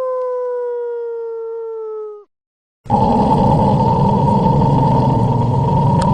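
A dog howling one long note that sinks slowly in pitch and stops about two seconds in. After a short silence comes a loud, rough, continuous dog growl.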